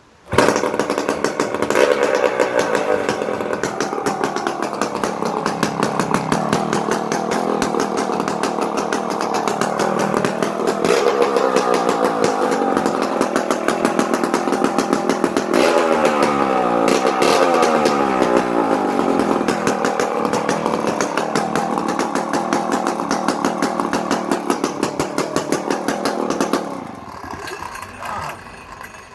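Danarm DD8F vintage two-stroke chainsaw catching and starting almost at once, then running with its engine speed rising and falling several times. It shuts off a couple of seconds before the end.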